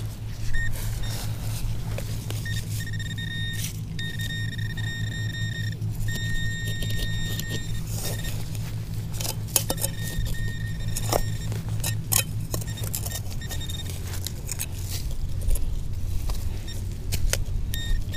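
Minelab Equinox 600 metal detector sounding a high steady tone in several pulses between about two and seven seconds in, as it passes over a target. Sharp clicks and rattles of digging are heard throughout, over a low steady engine hum that shifts about two thirds of the way through.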